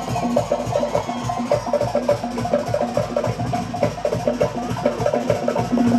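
Live Cook Islands music: a fast, even rhythm of clacking wooden drum strokes with deeper drum beats underneath.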